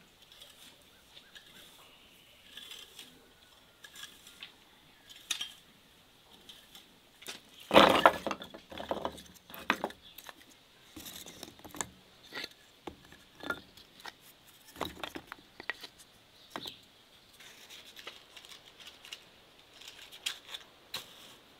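Split wooden kindling sticks clattering as they are set down on a wooden tabletop, the loudest clatter about eight seconds in, with scattered light knocks and clicks of the wood being handled.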